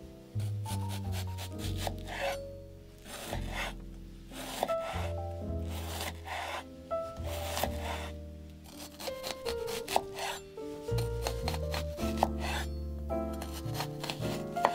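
Background music with a steady bass line, over many short rubbing and scraping strokes of food being prepared by hand.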